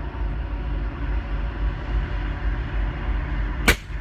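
One suppressed rifle shot about three and a half seconds in: a 24-inch 6.5 Creedmoor Accuracy International AX MC firing through a Thunder Beast Arms 5-inch 6.5 Ultra suppressor, metering about 140 dB at the Mil Spec position. A steady low rumble runs beneath it.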